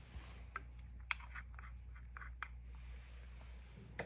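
Cat crunching dry kibble: a string of small, quick crunches in the first half, then a pause and one more click near the end.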